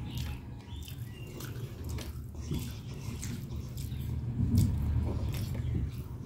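Someone eating with their fingers: chewing and wet mouth clicks and smacks, with a scatter of short sharp clicks, over a low steady background rumble.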